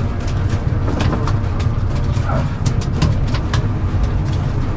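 Boat's engine running steadily under way, a loud low rumble, with frequent short sharp knocks and splashes over it.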